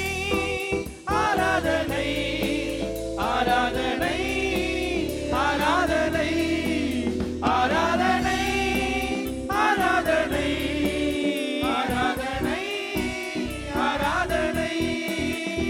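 A male worship leader singing a slow Tamil worship song into a microphone, in phrases a second or two long, over steady sustained instrumental backing.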